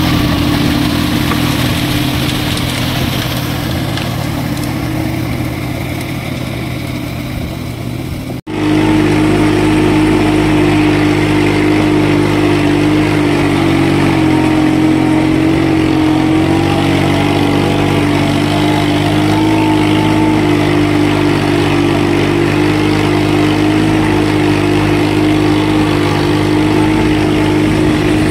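VT-180D mini tractor's diesel engine running steadily under load as it pulls a rotary tiller through flooded paddy mud. About 8 seconds in there is an abrupt cut, and after it the engine is heard closer and louder, with a steady hum, as from the driver's seat.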